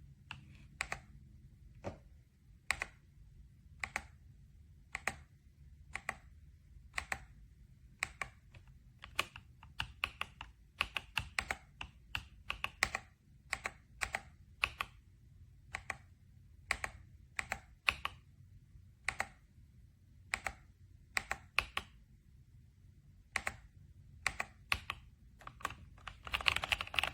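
Typing on an RK Royal Kludge S98 mechanical keyboard: separate keystroke clicks about once a second, with quicker runs of several keys around the middle and a dense flurry near the end.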